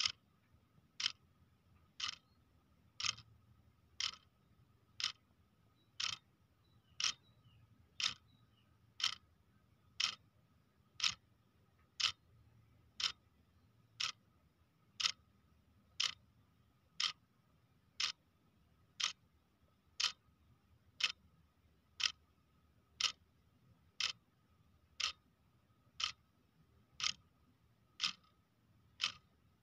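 Clock ticking steadily, one sharp tick a second, with a faint steady high tone underneath.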